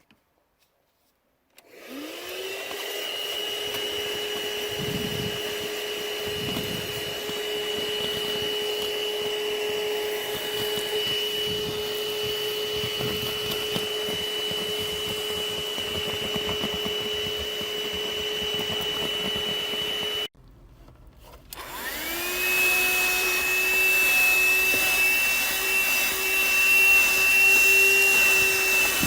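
THISWORX 12-volt handheld car vacuum switched on, its motor whining up to speed and running steadily. It cuts off suddenly about twenty seconds in, then starts again about a second later and runs on louder.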